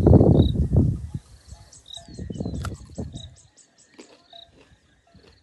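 Rustling and handling noise for about the first second, then quieter scuffs, while an insect chirps in a fast even pulse of about four a second and a bird gives short chirps.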